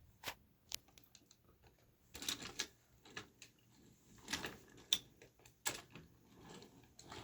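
Wooden toy train cars clicking and clattering lightly along a wooden track, a scatter of small knocks with a couple of brief rattling runs.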